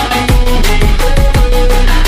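Electronic hip-hop backing music in an instrumental stretch without vocals: a heavy beat with deep kick drums that drop in pitch, about two a second.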